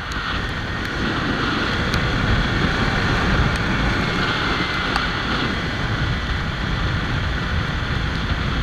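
Steady wind rush and road noise while riding a Kawasaki Ninja 300 motorcycle on wet roads, with a faint steady whine above it.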